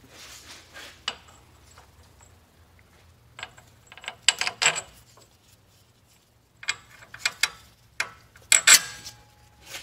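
Steel hub bolts clicking and clinking against the steering knuckle as they are pushed through and started by hand. The sound comes in several short, irregular bursts, the loudest near the end.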